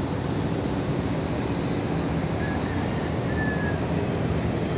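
Steady low drone of a boat's engine on the river, with an even rushing noise over it. Two faint short high chirps sound near the middle.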